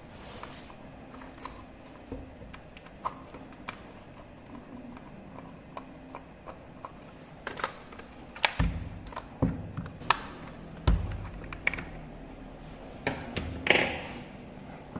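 Irregular clicks and taps of small objects being handled, with a few heavier knocks in the second half.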